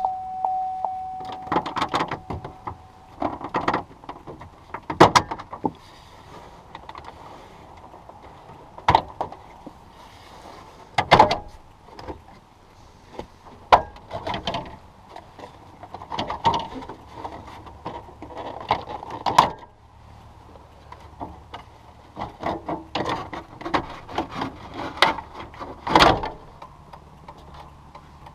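Plastic dash trim around a 2004 Chevrolet Silverado 2500HD's instrument cluster being pulled off by hand: sharp snaps at irregular intervals as its retaining clips pop free, with plastic creaking and rattling between them. A steady tone sounds for the first few seconds.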